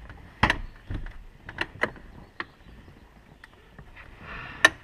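A string of sharp clicks and knocks at uneven intervals inside the vehicle, with a short rustle and the loudest knock near the end: interior fittings being handled and tried for looseness.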